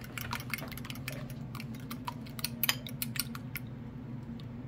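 Metal fork clicking rapidly against a ceramic bowl while beating eggs, the clicks thinning out and stopping about three and a half seconds in.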